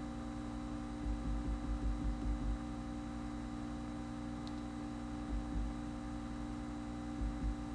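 Steady electrical mains hum in the recording, with a few soft low bumps about a second in, midway and near the end.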